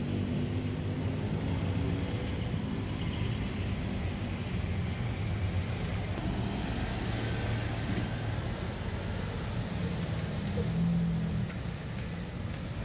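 A motor-vehicle engine running steadily: a low, even hum with no sharp events.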